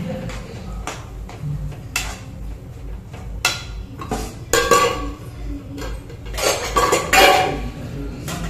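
Metal spatula knocking and scraping against a steel kadai, then a clatter of metal utensils, with a run of sharp clanks and the loudest clatter about six to seven seconds in.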